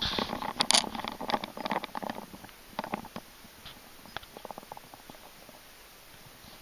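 Close rustling and crackling, many quick scratchy clicks, busiest in the first two seconds and dying away by about three seconds in, leaving only faint scattered ticks.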